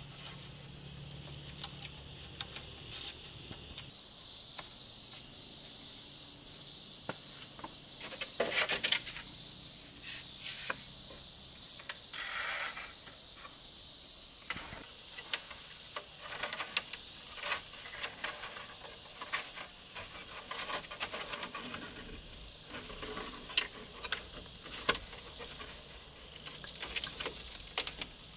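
A steady, high, pulsing insect chorus, with scattered clicks and knocks of handling and a few louder knocks about eight to nine seconds in.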